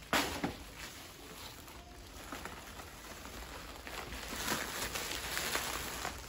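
Bubble wrap being handled and pulled off a toy robot: crinkling and rustling plastic, with one loud sharp crack just after the start and busier crinkling in the last couple of seconds.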